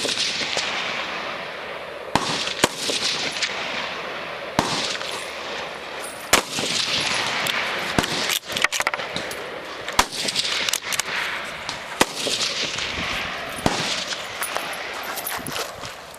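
Semi-automatic rifle shots fired one at a time at steel targets, about a dozen spaced a second or two apart, each trailing off in an echo.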